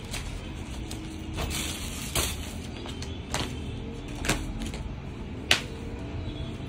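Soft background music with about four sharp clicks or taps and light rustling as the embroidered cloth is handled; the loudest click comes near the end.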